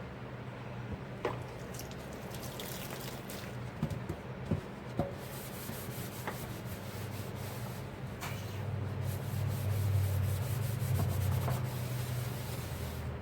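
Hand-washing dishes: a dish being scrubbed in quick rubbing strokes, with a few sharp clinks of crockery in the first half, over a steady low hum.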